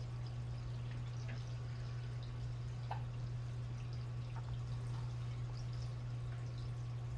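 A steady low hum with a few faint, irregular drip-like plinks over it, about five in all.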